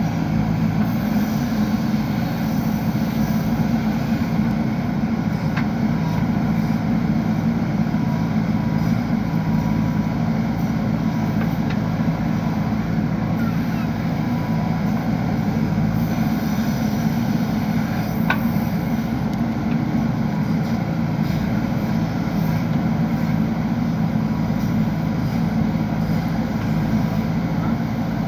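JCB backhoe loader's diesel engine running at a steady, even drone, with a couple of faint clicks from the machine's work.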